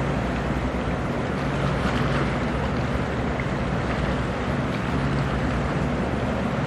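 Engines of a 21 m coast guard survey boat running at speed, a steady low drone, over the rush of its bow wave and wake through choppy water, with some wind on the microphone.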